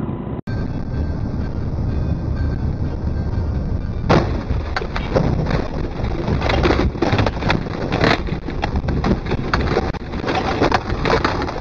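Vehicle noise on the move, steady at first, then from about four seconds in a dense run of sharp knocks and bangs over it.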